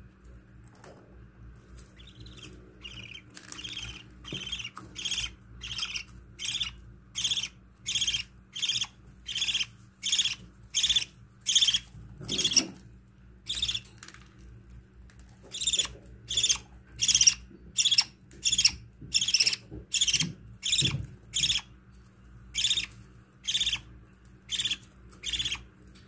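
Budgerigar chick begging while being fed by its mother: a long run of short, raspy cheeps, about two a second, with a brief pause around the middle.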